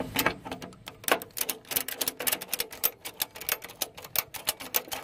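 Ratchet on a wheel tie-down strap being worked to pull the strap tight around the tyre, its pawl clicking rapidly, several clicks a second.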